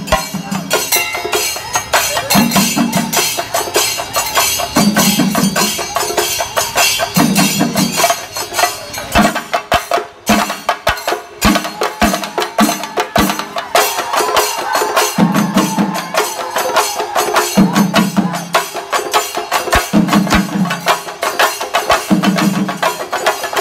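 Singari melam ensemble of chenda drums beaten fast and continuously with sticks, a dense crackling rhythm. A lower, fuller beat comes in short stretches every two to three seconds, and the playing thins briefly about ten seconds in.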